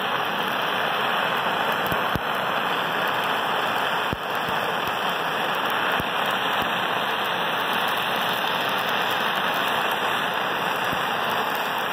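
Handheld gas torch burning with a steady hiss, its flame held against a cement disc.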